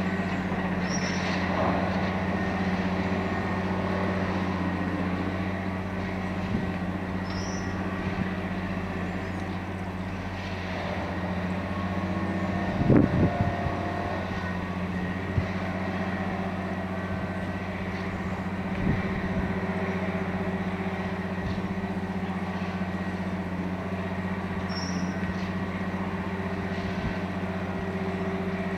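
Diesel engine of a multiple tie tamper running at a steady drone, with a short cluster of loud knocks about halfway through.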